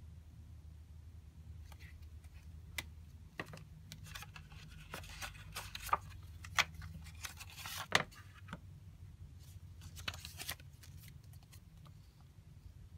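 Paper rustling and light clicks as a small softcover book is handled and its paper band slid off the cover, busiest in the middle with a few sharper snaps, over a steady low hum.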